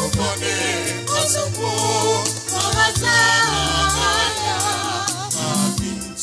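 Highlife gospel song: voices singing in Akan with vibrato over a stepping bass line and steady percussion.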